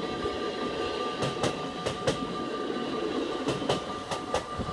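NS ICMm 'Koploper' electric intercity train passing at speed: a steady rush of wheels on rail, with sharp clacks in quick pairs as the bogies cross rail joints. The level-crossing bells ring steadily behind it.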